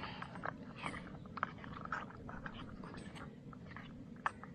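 Scattered light clicks and crinkles of the meal's packaging being handled.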